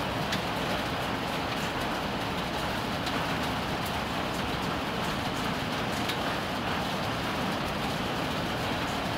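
Hail and heavy rain falling in a steady dense hiss, with scattered small sharp ticks of stones striking.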